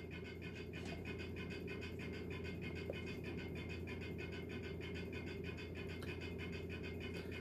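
Steady low background hum with a faint even hiss, and a single faint click about three seconds in.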